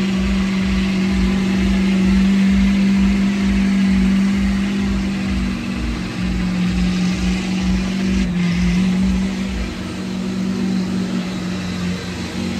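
Lifted mud truck's big engine running steadily as the truck creeps past, its pitch dipping briefly about eight seconds in. A low thump pulses about twice a second under it and fades out near the end.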